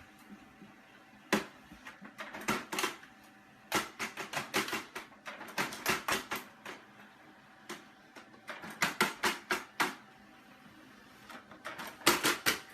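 Irregular sharp clicks and taps, some single and some in quick runs, with short pauses between them.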